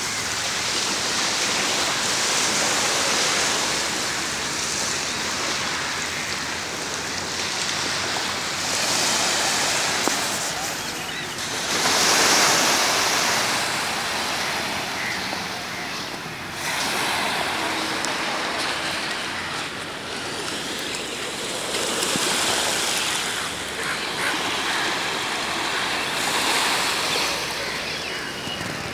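Small sea waves washing onto a sandy beach: a steady surf hiss that swells and ebbs every few seconds.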